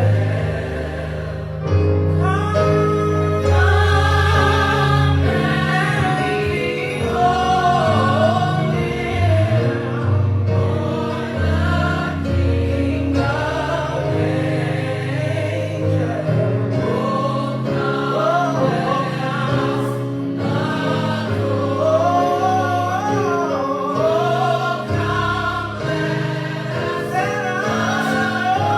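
Church choir singing gospel music, many voices in harmony over steady low accompanying notes.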